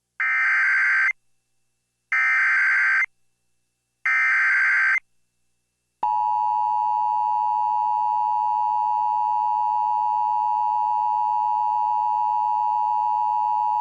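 Emergency Alert System signal for a severe thunderstorm warning. Three short, raspy data bursts (the SAME header) sound about a second apart, followed by one long, steady attention tone.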